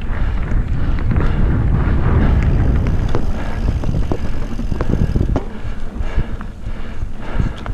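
Mountain bike riding fast down a dirt singletrack: wind on the microphone and tyres on the dirt make a heavy rumble, with sharp clicks and knocks as the bike rattles over bumps. The rumble eases about five seconds in.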